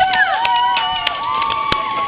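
Several people shouting at once, their long drawn-out yells overlapping, with a few sharp clicks among them.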